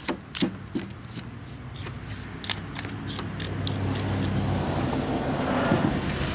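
Quick metal-on-plastic clicks and scrapes, about a dozen in the first four seconds, from tools picking and scraping gummed-up bar oil and sawdust out of a pole saw's head. A steady low hum then builds behind them.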